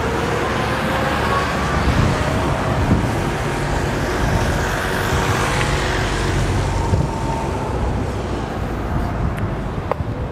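Steady road traffic noise, a continuous rumbling hiss of passing vehicles, with a couple of light clicks near the end.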